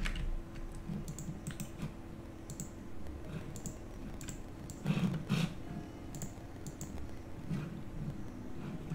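Computer keyboard key presses and mouse-button clicks, scattered and irregular, with a heavier cluster of clicks about five seconds in.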